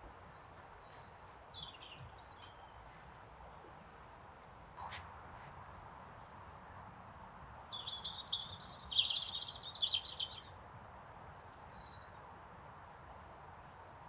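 Small birds chirping in short, high calls, busiest about eight to ten seconds in, over a steady faint outdoor background hiss.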